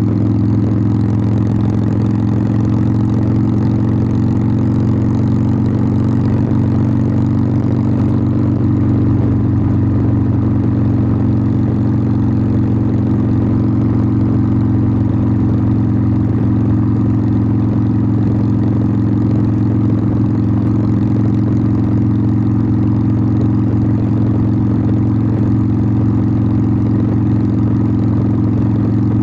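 Harley-Davidson Sportster 1200's air-cooled V-twin exhaust running at a steady engine speed, its note holding nearly constant in pitch and loudness.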